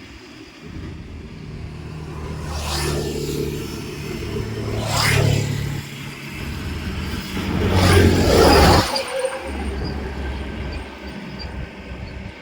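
Motor vehicles passing by one after another: three swells that build and fade, the loudest about two-thirds through, over a steady low engine hum.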